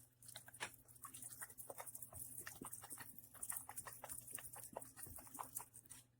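Faint, irregular run of light clicks and taps, several a second, over a soft high hiss.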